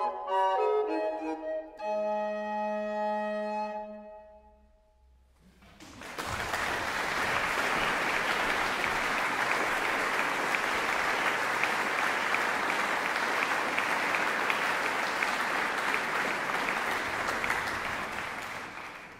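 A recorder plays the last notes of an early music piece, ending on a held chord over a low sustained note that dies away. After a brief pause the audience applauds steadily, fading out near the end.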